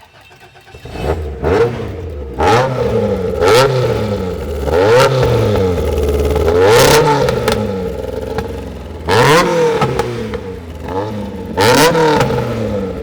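Toyota AE86's built engine on twin Mikuni Solex 44 carburettors, revved in a series of sharp throttle blips, each rising and falling back. It comes in about a second in, and the last blips come near the end.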